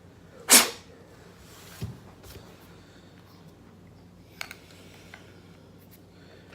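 Handling noises of hair clipper parts being worked on by hand: a short, loud scrape or rustle about half a second in, a low knock nearly two seconds in, and a few small clicks later. The clipper motor is not running.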